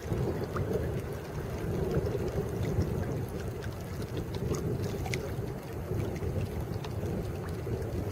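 Steady low rumble and wind noise aboard a small wooden boat on the water, with faint scattered ticks.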